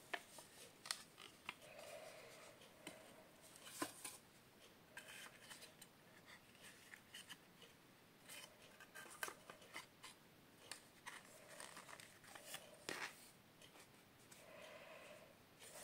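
Faint handling of a wooden picture frame and its cardboard backing board: scattered sharp clicks and short light scrapes as the backing is fitted.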